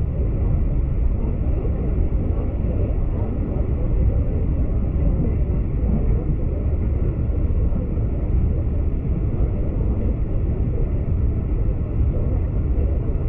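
V/Line passenger train running along the line, a steady low rumble of wheels on rail and running gear heard inside the carriage.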